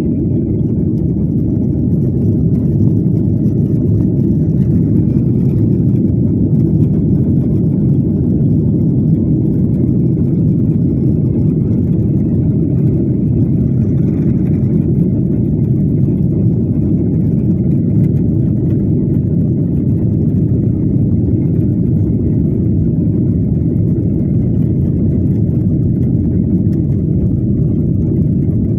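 Airliner cabin noise during takeoff: a loud, steady low rumble of engines and airflow, swelling slightly at first and then holding level.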